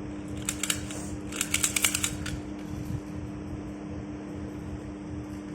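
A steady low hum, with two short runs of rapid crackly clicks, the first about half a second in and a longer one about a second later.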